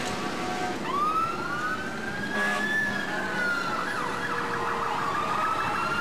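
Emergency-vehicle siren sounding a slow wail. It rises about a second in, holds high, falls away, then climbs again near the end.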